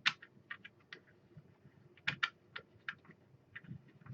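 Irregular light clicks and taps of small hardware being handled, loudest at the start and about two seconds in.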